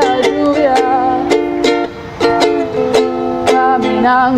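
Ukulele strummed in chords at a steady rhythm, with a young woman's voice singing along in gliding notes.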